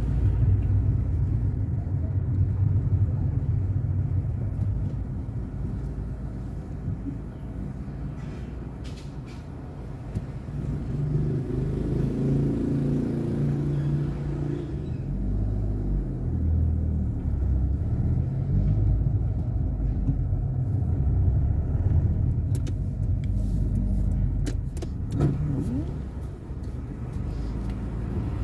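Car on the move: a steady low rumble of engine and road noise that eases off for a few seconds about a third of the way in, then builds again.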